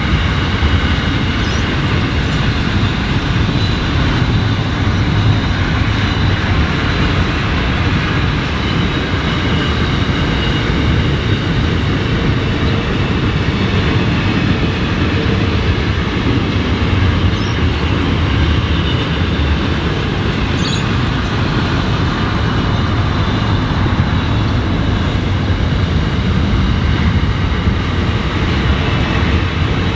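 Container wagons of an intermodal freight train rolling past at steady speed: a continuous, even rumble of wheels on the rails.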